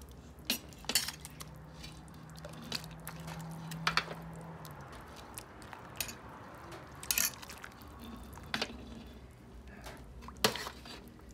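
A ladle clinking and knocking against an aluminium stockpot and a ceramic bowl with a metal spoon in it while menudo broth is ladled and poured into the bowl, with liquid splashing and dripping between the clinks. The knocks come irregularly, a dozen or so, the loudest near the end.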